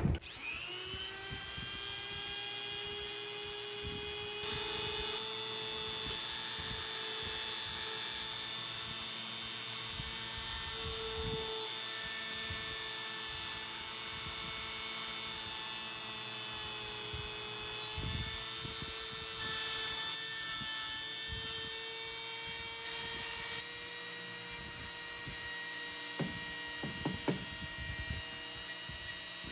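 Wen handheld rotary tool's electric motor spinning up and then running at a steady high speed, a continuous high whine. A few short scuffing knocks come near the end.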